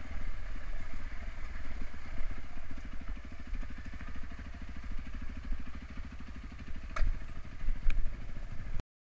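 Single-cylinder four-stroke 450 dirt bike engine running at low revs with an even, rapid beat as it climbs over rocks. Two sharp knocks come about seven and eight seconds in as the bike strikes rock, and the sound cuts off abruptly just before the end.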